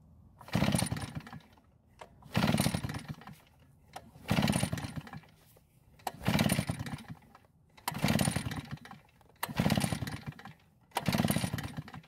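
Redmax EBZ8500 two-stroke backpack blower engine being pull-started seven times, each rope pull a roughly one-second rattling crank, without catching. The cranking tests for spark with an in-line tester fitted, and the spark shows but is inconsistent.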